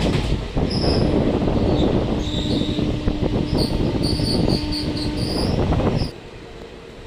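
Express passenger train running at speed: loud rumble and rattle of the wheels on the track, with a faint steady squeal over the middle of it and short high chirps above. About six seconds in the noise drops suddenly to a much quieter hum.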